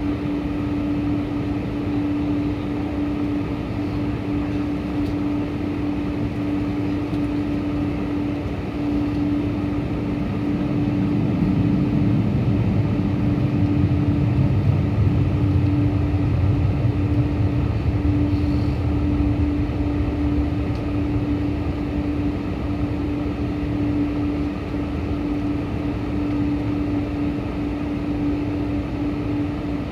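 Boeing 747-400 with Pratt & Whitney PW4056 engines: a steady jet drone with a constant hum running through it. The low rumble swells about ten seconds in and eases back after about twenty seconds.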